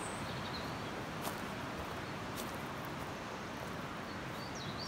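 Steady hiss of outdoor ambience, with a few brief high bird chirps at the very start and again just before the end, and a faint click about a second in.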